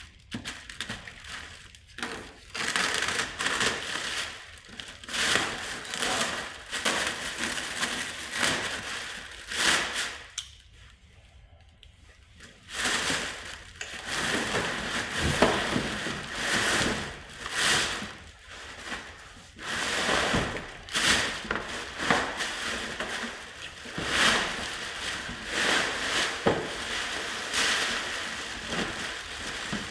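Packaging being handled during an unboxing: irregular crinkling, rustling and crushing of plastic air cushions and cardboard, with a quieter pause about ten seconds in.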